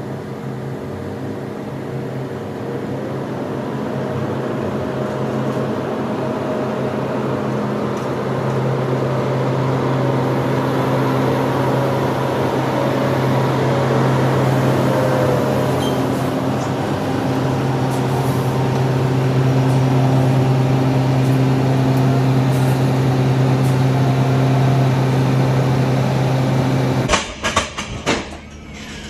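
Peterbilt semi-truck's diesel engine running steadily as the tractor-trailer backs up toward the loading dock, growing louder as it comes closer. It cuts off abruptly near the end, followed by a few sharp metal clanks of a pallet jack in the empty trailer.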